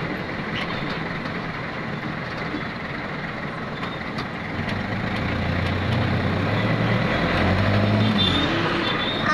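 Engine and road noise of a moving vehicle, heard from on board. A low engine drone grows louder from about five seconds in and fades near the end.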